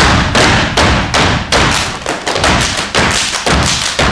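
Step team stepping in unison on a wooden stage: a steady rhythm of sharp stomps and claps, about three a second, echoing in the hall.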